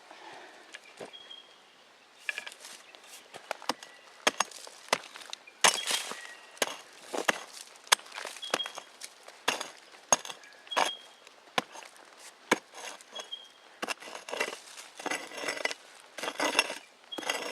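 A hand digging tool striking and scraping into stony creek-bed soil and gravel, with irregular sharp hits and clinks, digging out a metal detector target.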